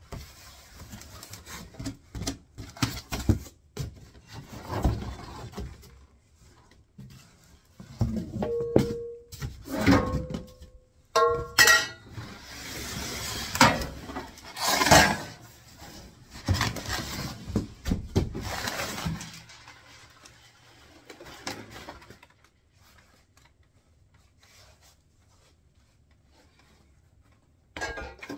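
Cardboard box scraping and rustling as a steel wheelbarrow tray and its parts are pulled out of the packaging, with a few short ringing knocks from the steel a third of the way in. The handling turns much quieter for the last third.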